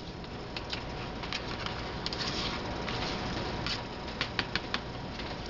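Raw chicken pieces being pushed off a paper plate into a bowl of batter: soft scraping and handling noise with scattered light clicks, and a quick run of about four clicks about four seconds in.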